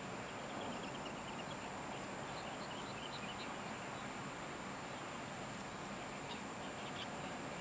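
Wild birds chirping in several short runs of quick high notes, over a steady high-pitched whine and a light hiss of outdoor background noise.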